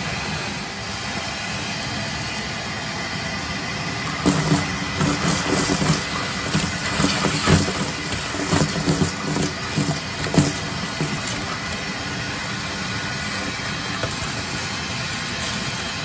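Shop vacuum running steadily with its hose down a wood stove's flue pipe, sucking out creosote and debris. From about four seconds in to about eleven seconds, irregular rattling and clattering as chunks are drawn up the hose.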